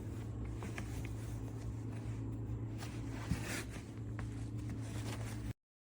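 Handling noise: a few light rustles and clicks and one thump about three seconds in, over a steady low hum. The sound cuts off abruptly near the end.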